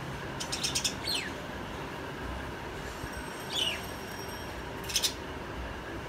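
Small pet parrots chirping in their cage: a few quick bursts of rapid chirps and two short falling calls, over steady background noise.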